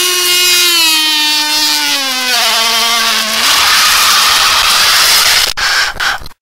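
The end of an electronic track: a droning synth tone slides slowly down in pitch and levels off, over a hissing wash of noise. A click comes near the end, then the sound cuts off to silence.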